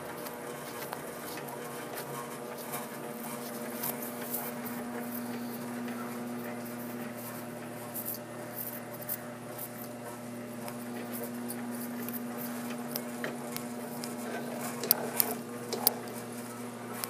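A steady electrical hum runs throughout, with light, scattered clicks and taps over it. A few sharper, louder clicks come near the end.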